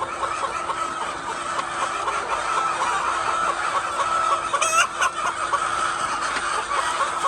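A large flock of laying hens clucking and chattering together, many overlapping calls at once, with one louder, sharper call about halfway through. A steady low hum runs underneath.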